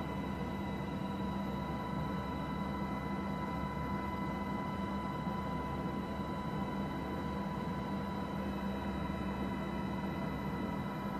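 Steady mechanical drone and hiss with a constant high whine, unchanging throughout, with no impacts or explosions.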